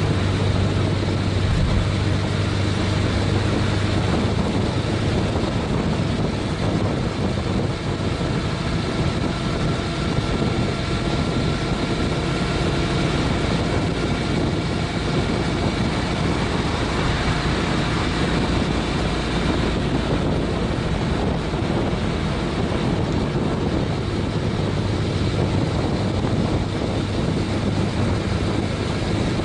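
Honda CTX700N's 670 cc parallel-twin engine running steadily at a road cruise of about 30 mph, mixed with wind and road noise, as picked up by a camera on the handlebars.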